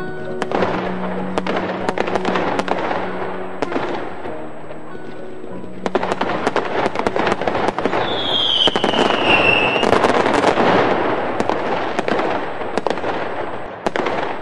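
Fireworks and firecrackers going off in dense, continuous crackling bangs, heavier from about six seconds in, with a high whistle falling in pitch for about two seconds near the middle. Steady background music plays underneath.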